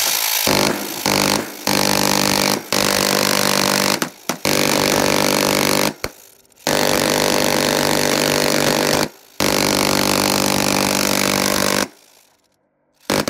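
Dillon Aero M134D six-barrel electric minigun firing 7.62 mm rounds in a string of long bursts with short breaks between them. Each burst is a continuous buzzing burr from its very high rate of fire. The firing stops about twelve seconds in.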